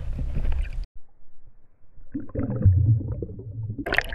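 Muffled underwater sound, heard through a camera held below the water surface: low gurgling and sloshing with a brief near-silent dip about a second in. A sharp noisy burst comes just before the end.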